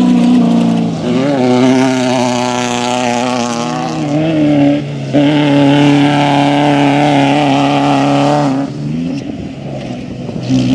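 Off-road race vehicle engine running hard, its pitch wavering and shifting as it accelerates and backs off; the sound falls away about three-quarters of the way through.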